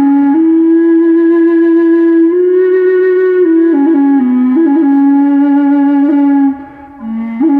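Slow solo melody on a low-pitched flute: long held notes joined by quick grace-note flicks, with a short gap near the end.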